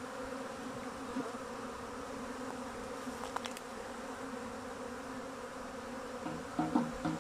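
Honeybee swarm buzzing as it flies around and settles onto a comb frame held up to catch it: a steady, dense hum.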